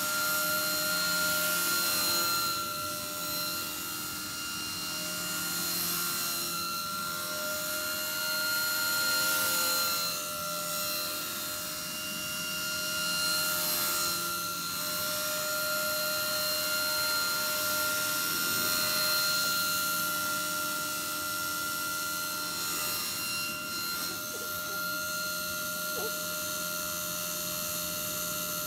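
Small electric RC helicopter (cHP 120 B, 120-size, on a 2S battery) flying circuits: a steady whine from its motor, gears and rotors at an even pitch, swelling and easing every few seconds as it passes nearer and farther.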